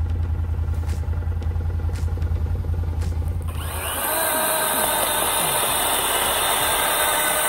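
Side-by-side UTV engine rumbling steadily while driving. About three and a half seconds in, the rumble gives way abruptly to a louder, hissing whir with steady tones in it.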